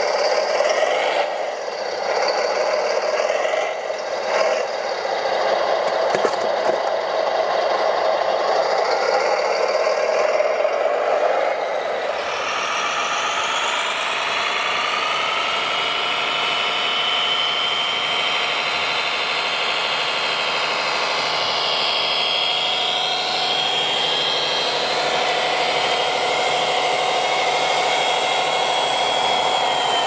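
Radio-controlled construction vehicles' electric drive motors and gearboxes whining as the machines drive. About twelve seconds in the sound changes to a steadier, higher whine that rises briefly and then holds at one pitch.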